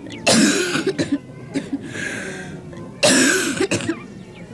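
A person coughing: a loud, harsh cough about a quarter second in and another about three seconds in, with weaker coughs between.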